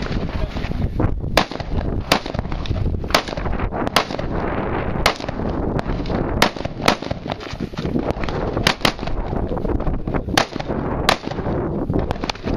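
AR-15 rifle fired semi-automatically during a practical rifle stage: about a dozen sharp shots at an uneven pace, some as quick doubles, with pauses between target arrays.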